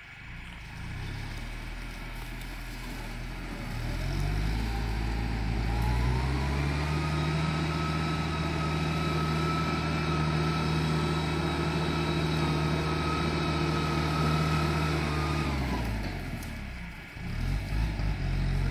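Farm tractor's diesel engine pulling a disc harrow through dry ground. Its pitch climbs over a few seconds and holds steady under load, then drops back about three-quarters of the way through, with uneven revs near the end.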